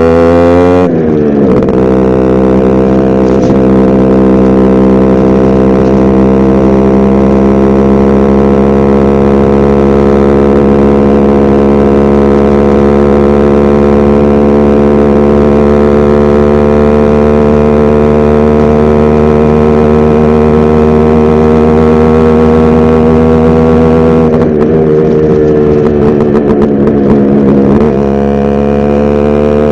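Yamaha RX100 two-stroke single-cylinder motorcycle engine under way. Its pitch drops at a gear change about a second in, then climbs slowly as the bike gathers speed, and dips and recovers a few seconds before the end. The silencer-to-bend-pipe seal is burnt out, so exhaust is leaking at the joint.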